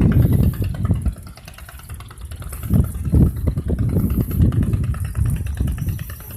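An engine running at idle with a low rumble. It is loudest at the start, eases off about a second in, and swells again twice later on.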